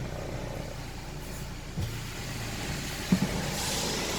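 Steady motor vehicle noise, with two soft low knocks partway through and a hiss that grows louder near the end.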